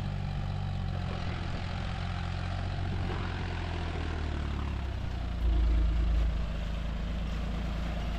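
John Deere 5310's three-cylinder diesel engine running steadily under load as the tractor churns through wet paddy mud on steel cage wheels. A brief louder low rumble comes about five and a half seconds in.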